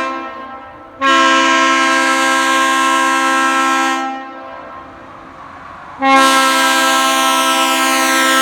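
Leslie S2A two-chime train air horn with aluminum Tabby power chambers blowing its low two-note chord in repeated blasts: one ends right at the start, a second runs about three seconds from a second in, and a third starts about six seconds in.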